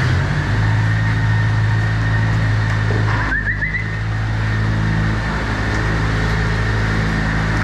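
Milking-parlour feed dispensers running as the cows come in: a steady low mechanical rumbling that starts at once and holds, as the feeders deliver each cow's provender ration.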